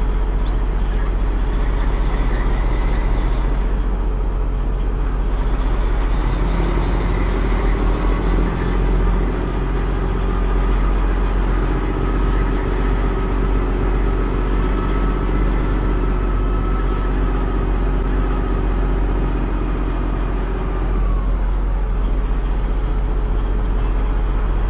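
Peterbilt 379 truck's diesel engine running at low idle as the truck creeps forward at walking pace, heard from inside the cab as a steady low rumble. A steadier humming tone rides on it for about fifteen seconds in the middle.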